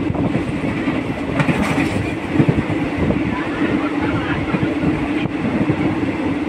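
Train running steadily, heard from on board: a continuous rumble of wheels on rails with irregular clatter.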